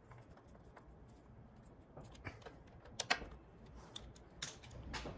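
A handful of faint clicks and light taps as the hinged igniter is closed back down onto a Beckett AFG oil burner, the sharpest a pair of clicks about three seconds in.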